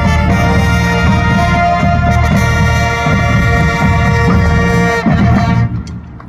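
High school marching band playing a Christmas piece: brass holding loud sustained chords over drums. The music cuts off about five seconds in and rings away briefly.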